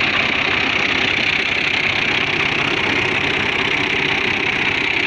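Tractor diesel engine idling steadily, with no revving.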